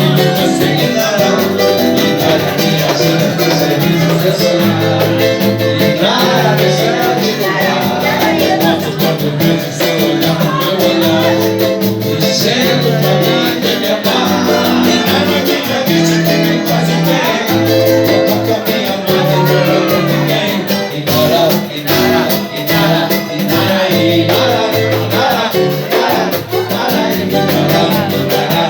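A band playing Latin-style music with guitar, a steady beat and some singing.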